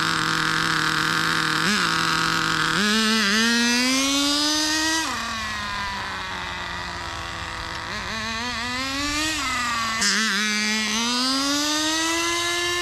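Nitro RC car's small glow engine, fitted with a miniature turbo kit, running: steady for a few seconds, then three times revving up in a rising pitch and dropping back. The revs climb and fall without a change of gear, as the transmission never shifts into second.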